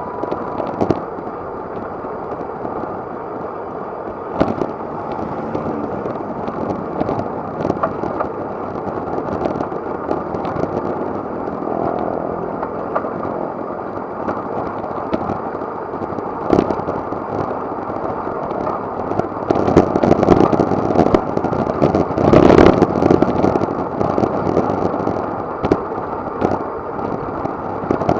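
Wind and road noise on an action camera's microphone while riding a road bike, a steady rush with scattered sharp knocks, louder from about 20 to 24 seconds in.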